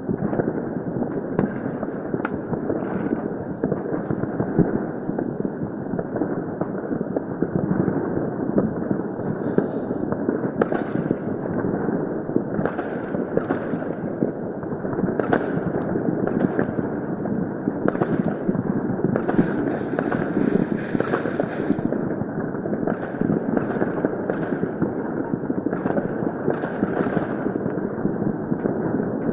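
Distant fireworks and firecrackers going off all over the city at once: a dense, continuous crackle of overlapping bangs, with sharper single pops every second or so. A short hiss comes about twenty seconds in.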